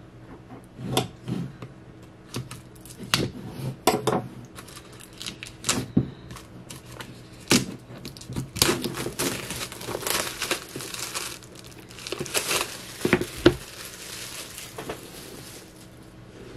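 Plastic wrapping crinkling and being torn open by hand, amid scattered knocks and taps of an album being handled. Around the middle comes a few seconds of steady crinkling.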